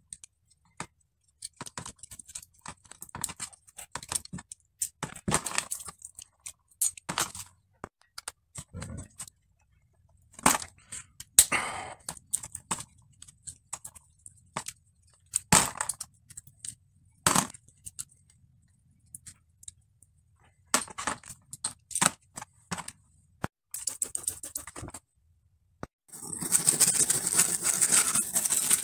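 Small metal and plastic parts of a Shimano Altus rear derailleur being taken apart by hand over a plastic tray: scattered clicks, clinks and scrapes with short pauses, and a longer, denser spell of handling noise near the end.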